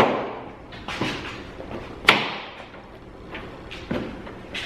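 Plastic grille being pressed and knocked into its mounting clips on a Toyota Tundra's front end: a series of sharp snaps and knocks, the loudest about two seconds in.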